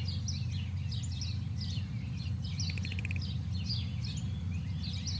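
Several wild birds chirping and calling over a steady low rumble of outdoor ambience, with a short rapid buzzy trill about three seconds in.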